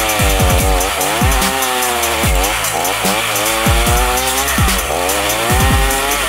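Chainsaw engine driving a homemade stump-grinder cutter with planer-blade knives, chewing into a tree stump; the engine pitch dips and recovers again and again as the knives bite into the wood.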